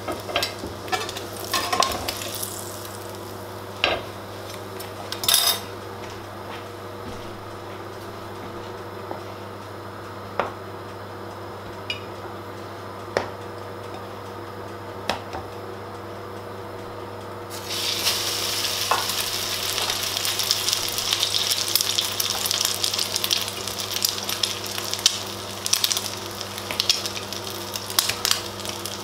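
Oil in a frying pan sizzling faintly, with a few clicks and knocks of tongs and dish in the first seconds. A little past halfway, an egg-coated slice of bread goes into the hot oil and a loud sizzle full of pops starts abruptly and carries on.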